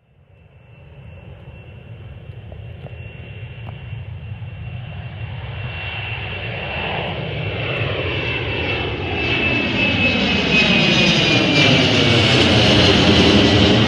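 Embraer 190 jet airliner climbing out after takeoff, its twin GE CF34 turbofan engines growing steadily louder as it comes overhead. A steady high whine rides over the jet noise and starts to fall in pitch near the end.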